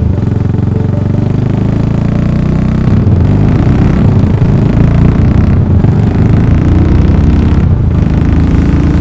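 Yamaha SR400 single-cylinder engine running loud through a full megaphone exhaust while being ridden, the note changing pitch and dipping briefly three times.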